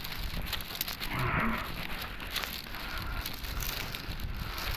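Steady low outdoor rumble, with a short muffled call-like sound about a second and a half in.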